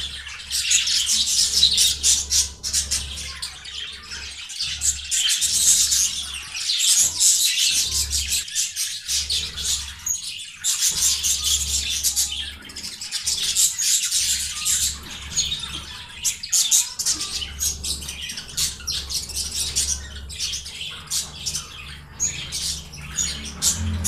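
Albino budgerigar chattering: a fast, continuous stream of scratchy chirps and squawks.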